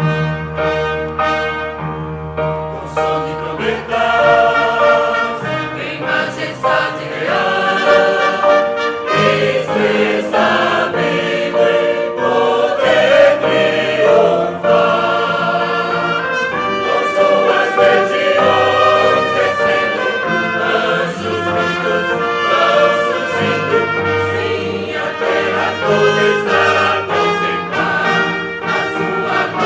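Youth choir singing with brass accompaniment, trumpets prominent.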